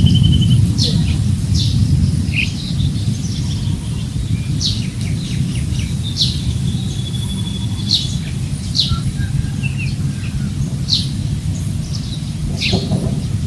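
Several birds calling: short, sharp, high chirps that sweep downward, repeating about once a second, and a quick rattling trill twice. Under them runs a steady low rumble of wind on the microphone.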